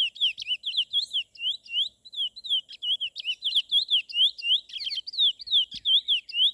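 A small songbird, called a pardinho locally, singing a fast, unbroken run of high chirped notes, about five a second.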